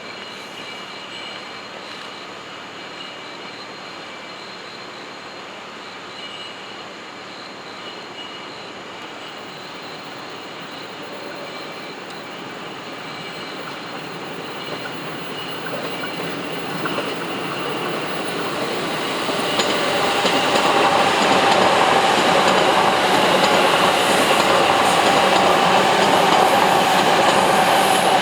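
Chuo Line electric train approaching, its running and wheel-on-rail noise growing steadily louder from about halfway through, then holding loud and steady near the end.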